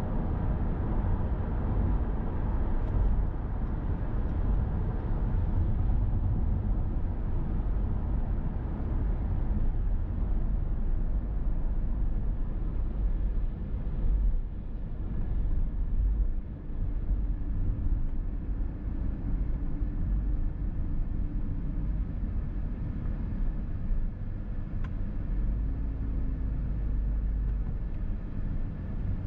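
Steady road noise of a car at highway speed: a low tyre and engine rumble under a constant hiss, with a faint droning tone in the second half.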